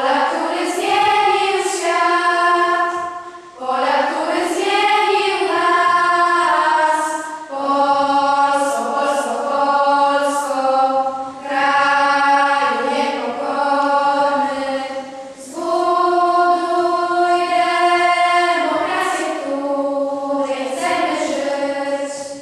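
A choir of schoolgirls singing a slow song together in long held notes, in phrases of a few seconds with short breaths between them; the song ends at the very end.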